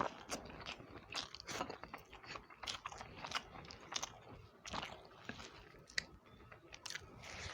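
A person chewing and eating egg curry with upma close to the microphone: irregular, closely spaced mouth clicks and chewing noises.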